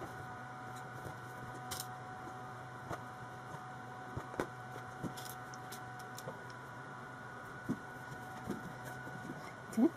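Light clicks and soft rustles of cotton fabric being handled and pinned over a zip, over a steady background hum, with a short rising sound near the end.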